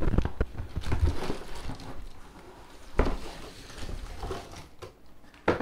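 Hands pulling a plastic-wrapped laptop out of its cardboard box: irregular scraping, rustling and clicking of cardboard, with a sharper knock about three seconds in and another near the end.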